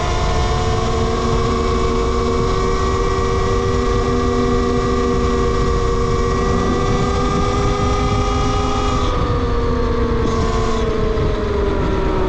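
Talaria Sting R MX4 electric dirt bike's motor whining while riding: a chord of steady tones that climbs slightly at first, holds, then drops in pitch over the last few seconds as the bike slows, over a low rumble of wind and road noise.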